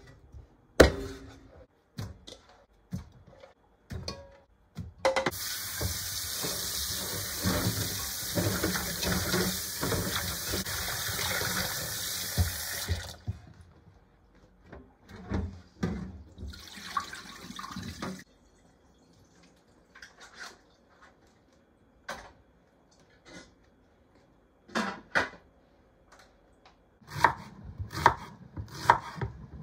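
A knife striking a wooden board as lamb is cut into pieces, then tap water running into a large pot in the sink for about eight seconds, with a shorter second run of water soon after. Scattered clinks follow, and near the end a knife chops through onion on a cutting board in quick strokes.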